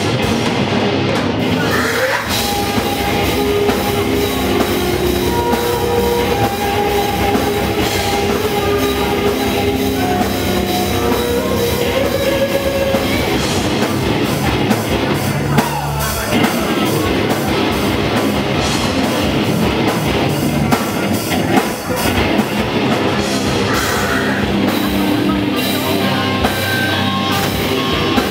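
Live rock band playing loud on electric guitar and drum kit, recorded from within the crowd.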